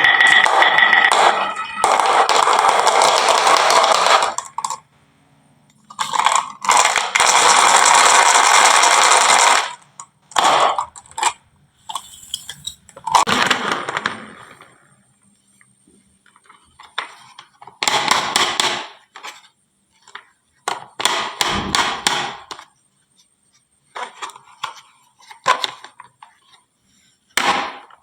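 Marbles rolling and rattling down a wooden marble run, in two long continuous stretches. Then come scattered single clacks and short clattering runs as marbles knock together and drop into toy trucks.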